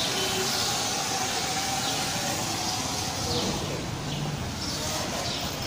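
Pressure-washer foam cannon spraying snow foam onto a car: a steady hiss of spray.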